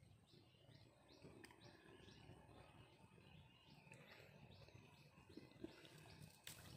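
Near silence: faint outdoor ambience with a soft high chirp repeating two or three times a second, and a single sharp click near the end.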